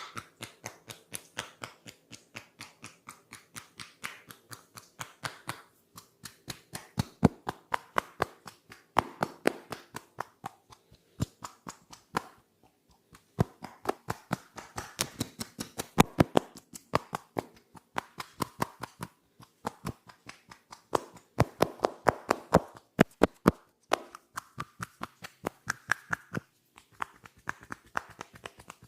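Hands striking rapidly in an Indian head massage, tapping and slapping at several sharp strikes a second. The strikes come in runs broken by short pauses.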